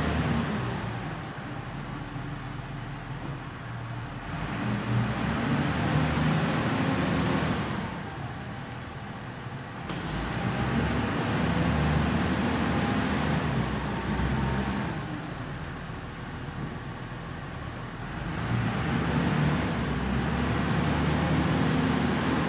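JCB 436 wheel loader's diesel engine running as the machine drives, its sound swelling and easing back three times.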